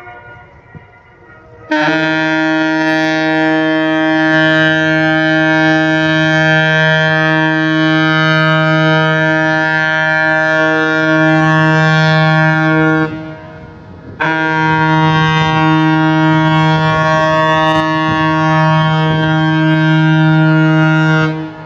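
The ship's horn of the river cruise ship A. I. Herzen gives two long, steady, low-pitched blasts as the ship leaves the quay. The first lasts about eleven seconds and the second about seven, with a short break between them.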